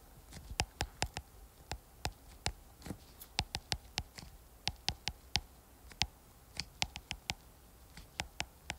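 Stylus tip tapping on a tablet's glass screen while handwriting Japanese characters: irregular sharp clicks, a few a second, sometimes in quick clusters, with short pauses between strokes.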